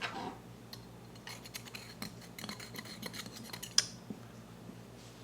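Light scraping and small clicks of a Mazzer Mini coffee grinder's metal part being cleaned by hand, irregular and scratchy, with one sharper click about three-quarters of the way through.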